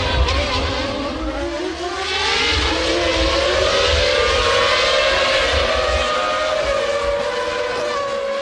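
Formula One race car engine at high revs: the pitch drops for about two seconds, then climbs smoothly as the car accelerates and holds a high, steady note.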